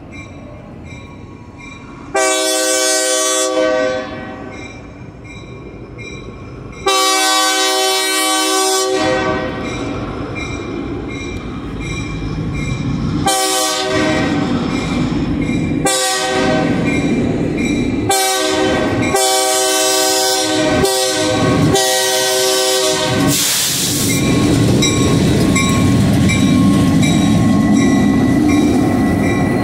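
Norfolk Southern diesel locomotive sounding its air horn for a grade crossing: two long blasts, then a run of shorter blasts in quick succession. Near the end the locomotives pass close by, with steady engine rumble and wheel noise on the rails.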